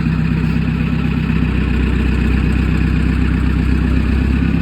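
Chainsaw engine running steadily at idle, with no revving.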